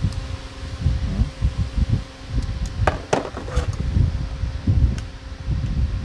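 Handling noise of small flush-valve parts being taken out of a cardboard box: repeated dull bumps and knocks, with a few sharp clicks and rattles about three seconds in and one more near the end, over a faint steady hum.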